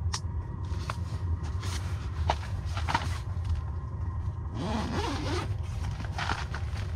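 Ice-fishing tent's door zipper being pulled open in several short strokes, over a steady low hum.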